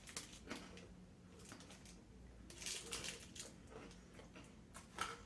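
Faint crunching of a Violet Crumble bar, chocolate over brittle honeycomb, being chewed, in a few short clusters of crunches.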